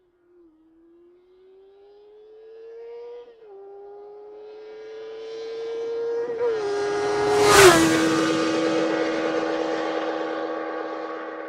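Fast motorcycle approaching and passing by: the engine note climbs under acceleration and steps down twice as it shifts up, grows louder to a peak about two-thirds of the way through, drops in pitch sharply as it passes, then fades away.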